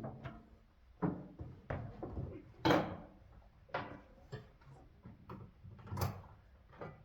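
A series of irregular knocks and clicks, about ten in all, with two sharper ones among them: handling sounds around a skid steer.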